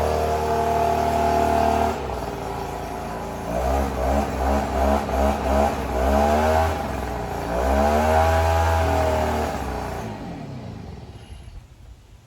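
Small petrol engine running steadily, then revved in a series of quick blips and one longer rev, then shut off and winding down to a stop near the end. It is a machine that had not been started in a long time.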